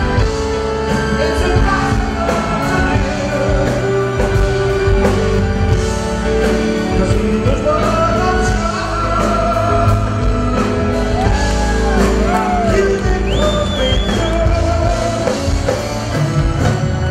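Loud live band music with keyboard, and a man singing into a microphone.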